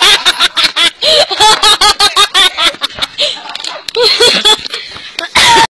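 Loud, hearty laughter in rapid bursts, close to the microphone, that cuts off suddenly near the end.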